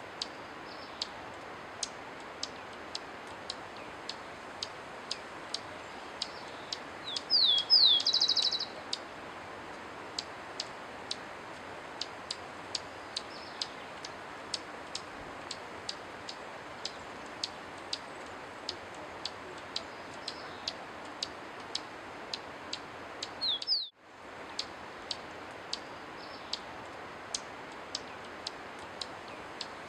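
A small Andean songbird, the comesebo andino, calls with a few quick downward-sliding high notes and a short buzzy trill about seven seconds in, then one more slurred note a little before the end. Through it all runs an even, sharp ticking, about three ticks every two seconds, over a steady hiss.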